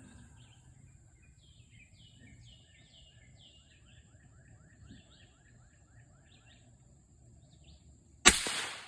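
Birds chirping in runs of quick falling notes, then, near the end, a single shot from a suppressed Christensen Arms 6.5 Mountain precision rifle: one sharp crack, called quiet, that dies away within about half a second.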